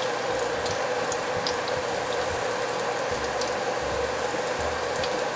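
Shiitake mushroom strips deep-frying in hot oil in a wok: a steady sizzle with scattered small crackles.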